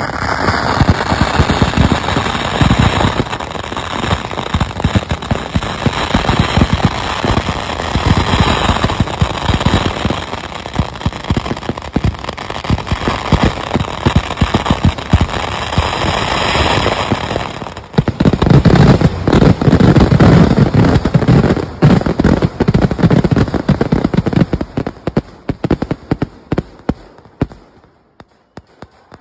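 Kerala vedikkettu fireworks: a dense, continuous barrage of firecracker and aerial-shell explosions, the bangs following each other so fast they run together. After a brief lull about two-thirds of the way through comes the loudest, densest burst, which then thins to scattered single bangs and dies away near the end.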